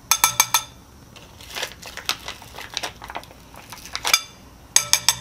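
Metal spoon clinking against a glass bowl in quick runs of four or five ringing taps, once at the start and again near the end, with lighter single clicks between. It is the sound of glitter being scooped from a plastic pouch and knocked off the spoon into the bowl.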